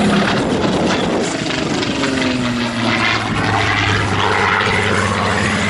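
Supermarine Spitfire's Rolls-Royce V12 piston engine running as the fighter flies overhead, a steady propeller drone whose note falls in pitch around the middle.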